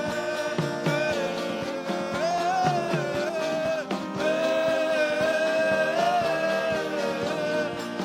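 Slow gospel worship music: sustained chords under a held, gently wavering melody line, with guitar and no words sung.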